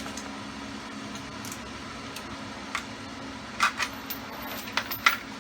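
A few scattered small metallic clicks and clinks of a hand wrench or socket on a bolt at the motorcycle's cylinder head, grouped about two-thirds of the way through and again near the end, over a steady low hum.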